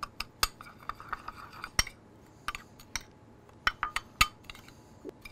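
Metal spoon clinking and scraping against a small glass bowl while stirring a dry spice blend: irregular sharp clinks, some in quick little clusters, over a faint gritty scrape.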